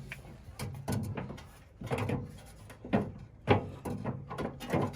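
A backhoe radiator being lowered and fitted into place: a series of short knocks and scrapes, about seven, as it bumps against the surrounding parts.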